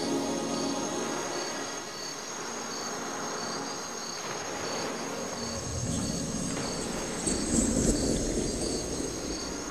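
Night insect chorus: crickets chirping in a regular pulse over a continuous high trill. From about halfway a low rustling rumble comes in, loudest near the end.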